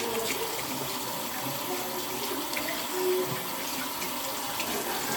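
Bathroom tap running water steadily into a sink.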